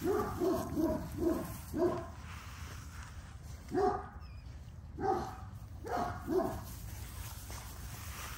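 A dog barking in short barks: a quick run of five, then four more spaced out over the next few seconds.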